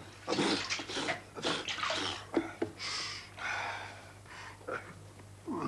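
Water splashing in a washbasin as a man scoops it onto his face in a series of short splashes, blowing and spluttering breaths between them, then rubbing his face dry with a towel.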